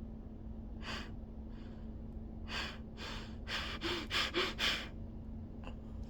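A person breathing close to the microphone: a breath about a second in, then a run of short, quick breaths and huffs in the middle. A faint steady hum runs underneath.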